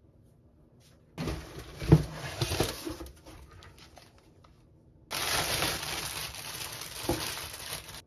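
Clear plastic wrapping crinkling and tearing as a new saucepan is unwrapped, in two bursts, the first with a few sharp knocks about two seconds in.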